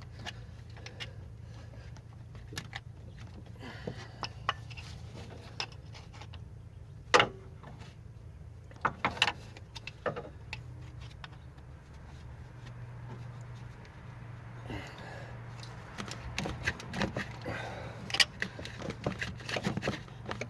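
Hand tools clinking and knocking against metal in irregular clicks, with a few sharper knocks about a third and halfway in and a busier clatter near the end, over a steady low hum: work on the stuck water pump bolts of a Mustang's 2.3 L four-cylinder.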